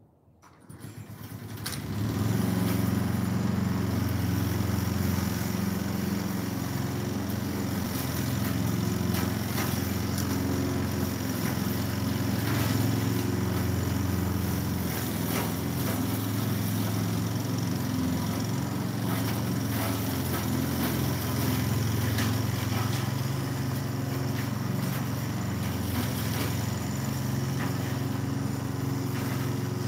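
Small petrol engine of lawn equipment starting up, rising to full running within about two seconds, then running steadily at a constant speed.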